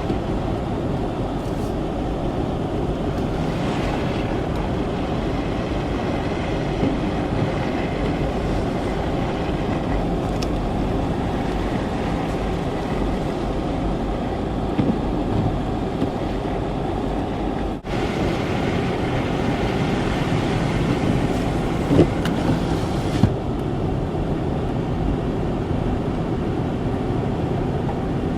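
Steady rumble of a car driving on a snowy road, heard from inside the cabin: engine and tyre noise at a constant level, with a couple of short knocks about three quarters of the way through.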